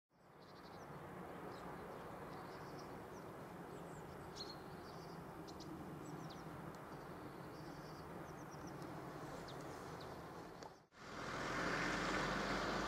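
Outdoor background noise with small birds chirping and calling in short, high notes. About eleven seconds in there is a brief cut, then the louder noise of a car driving past on the road.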